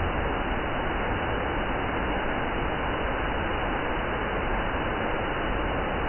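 Waterfall roaring, a steady, even rush of falling water.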